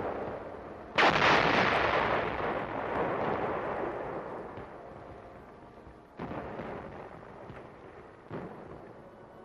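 Heavy artillery gun firing: one loud report about a second in, followed by a long rumbling decay, then two fainter reports near the end.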